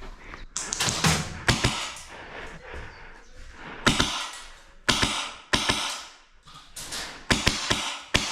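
Airsoft gunfire: about a dozen sharp single shots at irregular intervals, each with a short ringing tail, some in quick pairs and triples.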